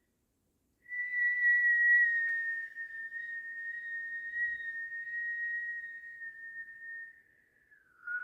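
A person whistling one long, high, steady note, which slides down in pitch near the end.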